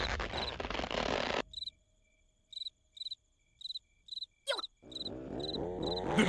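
Crickets chirping steadily, about two high chirps a second. A louder rushing noise cuts off about one and a half seconds in. A quick falling whistle sounds about four and a half seconds in, and a swell of wobbling tones builds near the end.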